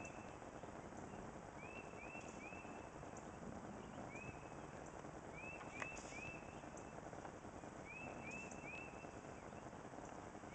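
A small songbird calling in short runs of three or four quick chirps, a run every couple of seconds, over a faint steady background noise, with one sharp click about six seconds in.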